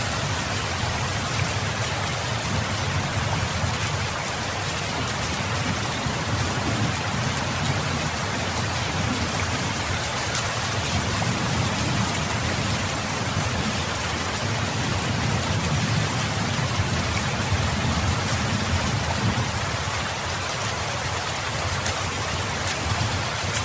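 Steady rain falling, an even hiss of drops, with a low rumble underneath that swells and fades every few seconds.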